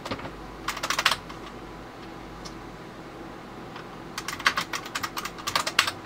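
Typing on a computer keyboard: a short burst of keystrokes about a second in, then a longer run of rapid keystrokes near the end, over a steady background hum.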